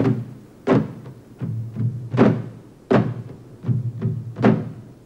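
Background music of evenly spaced drum strikes, about one every three-quarters of a second, over a low held tone.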